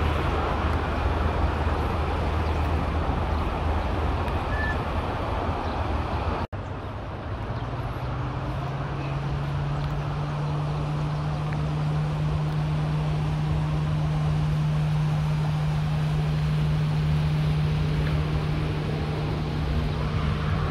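Steady vehicle running noise, a low rumble with a hiss over it. About six seconds in it breaks off at an edit and gives way to a steady low hum with a few overtones.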